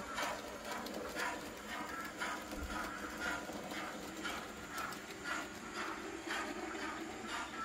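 A 00 gauge model train running along the track, its wheels clicking over the rail joints at a steady rhythm of about one and a half clicks a second over a steady running hum.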